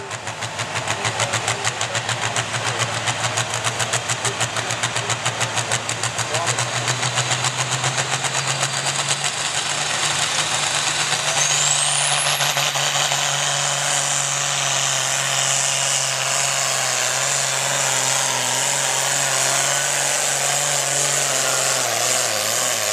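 Pro farm class pulling tractor's diesel engine running hard under load during a pull, pulsing fast at first, then steadier, with a high whine that rises sharply about twelve seconds in and then holds.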